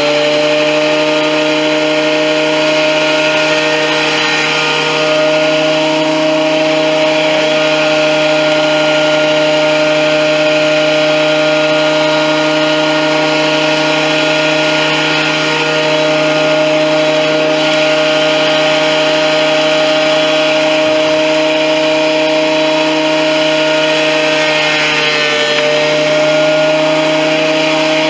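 Performax 15-amp 12-1/2 in benchtop thickness planer running at full speed: a loud, steady motor and cutterhead whine over a hiss. Its pitch sags briefly near the end, then recovers.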